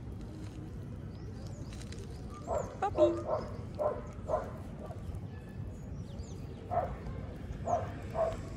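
Short, quick dog vocalizations in two runs: about six yips or grunts a couple of seconds in, then three or four more near the end.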